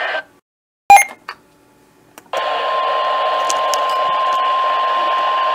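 A sharp click about a second in, then a little after two seconds the NOAA Weather Radio 1050 Hz alert tone sounds as one steady beep over radio static, the warning signal that introduces a new alert.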